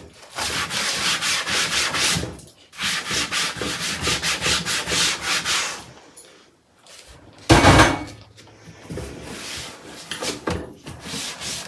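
Kitchen sponge scrubbing a drawer bottom in quick back-and-forth strokes, with a brief pause about two and a half seconds in. The scrubbing stops about six seconds in, a single loud thump follows near eight seconds, then softer rubbing.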